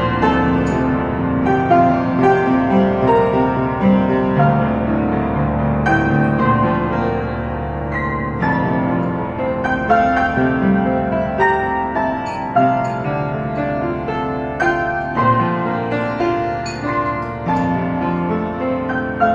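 Piano music without singing: slow, sustained chords and melody notes, a new note or chord struck about every second.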